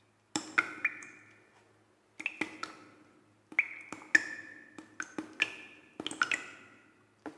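Sharp clicks and pings, mostly in clusters of two or three every second or two, each leaving a short ringing tone that dies away, over a faint low hum.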